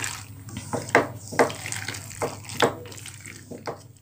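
A spatula stirring a thick, creamy macaroni mixture in a pan: wet squelching and scraping strokes against the pan, irregular, about two a second.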